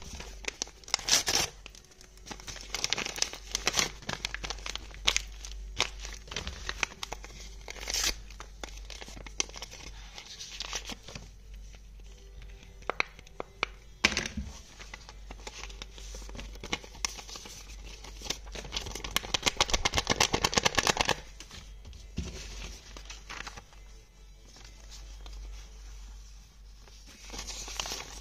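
Paper rustling, crinkling and tearing as homemade white-paper blind-bag envelopes are opened and the folded paper slips inside are handled, in short scattered bursts with a long stretch of rapid rustling a little past the middle.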